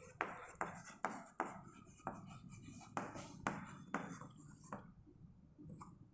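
Chalk writing on a blackboard: a run of short taps and scratches, about two a second, as letters are written, stopping about five seconds in.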